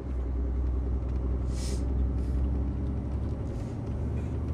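Heavy goods lorry's diesel engine running steadily, heard from inside the cab, with a short hiss of air about a second and a half in.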